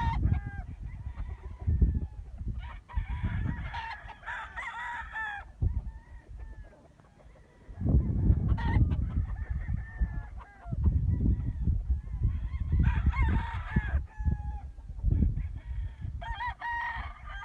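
Bird calls: several long pitched calls a few seconds apart, the longest lasting about two seconds, over a low rumbling noise.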